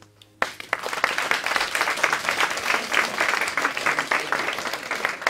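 An audience starts applauding about half a second in, many hands clapping at once at the close of a song.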